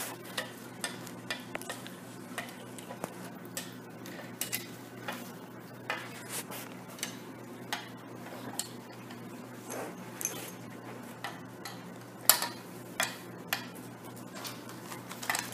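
Small plastic pegs clicking and tapping against a plastic pegboard as a child puts them in one by one: scattered short clicks, with a sharper knock about twelve seconds in, over a low steady hum.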